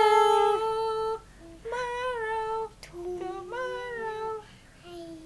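A young girl singing without clear words in a high voice: long held notes in four short phrases with brief pauses between them, the later phrases lower in pitch.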